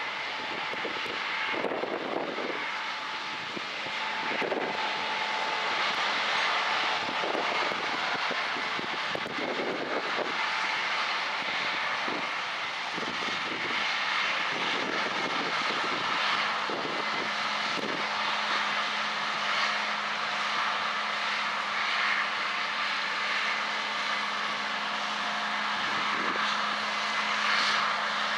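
Combine harvester running steadily in the field, its engine and threshing machinery making a continuous mechanical drone, with a low steady hum joining about two-thirds of the way through.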